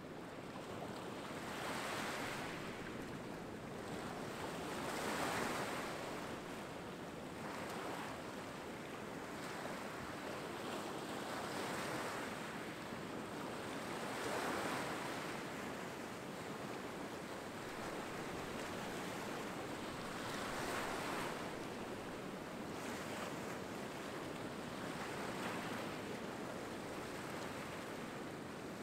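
Small ocean waves breaking and washing in among rocks onto a sand beach, the surf swelling and fading every few seconds.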